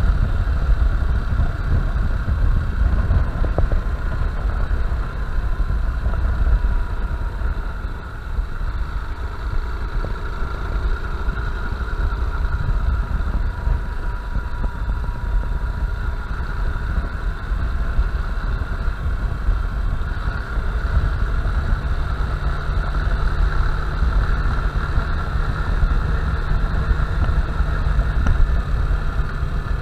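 Honda Bros 160 motorcycle's single-cylinder engine running steadily, over a continuous low rumble.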